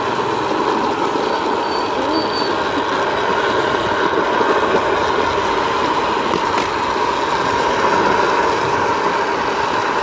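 A small rail vehicle running along the track: steel wheels rolling on the rails in a steady, even noise, with a brief faint high squeal about two seconds in.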